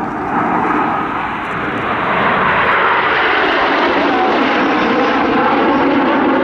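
Airplane engine noise from an aircraft flying past, growing louder over the first two seconds and then holding loud and steady.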